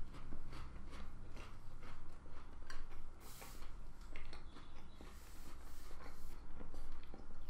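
Close-up chewing of a crisp cracker with cheese, mouth closed: a run of short, dry crunches.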